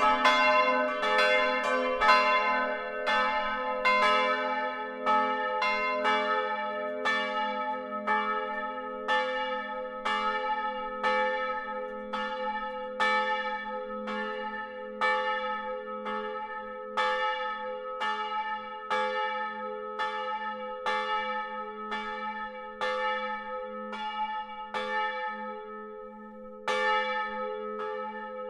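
Church bells swinging in the tower, heard close up from inside the belfry, their clappers striking the bronze with a lasting hum beneath. At first several bells strike, about two strokes a second. After a few seconds fewer are heard, leaving strokes about once a second that grow gradually quieter as the peal dies down.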